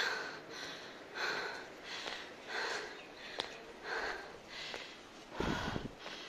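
A hiker panting hard, out of breath on a steep uphill climb, with rapid, regular breaths. A brief low rumble comes about five and a half seconds in.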